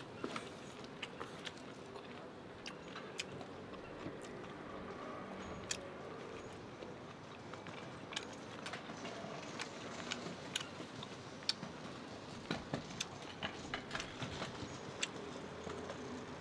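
A person chewing a mouthful of noodles close to the microphone, with many scattered small wet clicks and smacks of the mouth over a steady low background hum.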